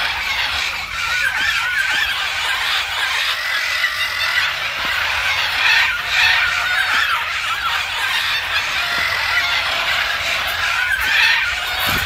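A cacophony of many parrots squawking and screeching over one another, a dense unbroken mass of harsh, wavering calls.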